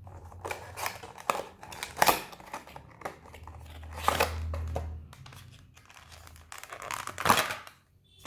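Packaging of a boxed model airplane being opened and handled: irregular crinkling and rustling with tearing, in short uneven bursts, loudest about two, four and seven seconds in.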